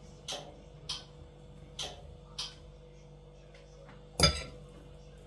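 Kitchenware clicking lightly four times, then one louder clink with a short ring about four seconds in.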